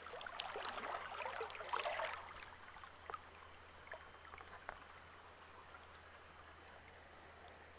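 Stream water running, with splashing and rustling for about the first two seconds as a set fishing line is pulled up from the water. After that only the faint steady flow of the water remains, with a few small ticks.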